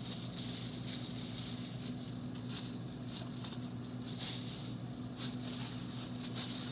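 Soft, intermittent crinkling of disposable plastic food-prep gloves handling cheese cut-outs and crackers, over a steady low room hum.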